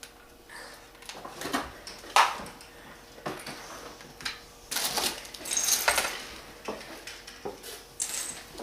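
Small plastic building-block pieces clicking and clattering as they are handled and pressed together, with a sharp click about two seconds in and rustling scrapes in the middle.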